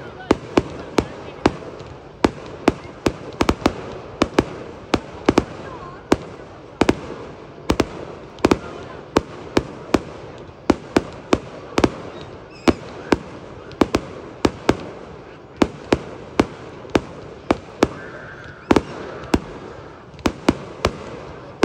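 Aerial fireworks display: a rapid, uneven series of sharp bangs from bursting shells, about two a second, over a continuous background murmur.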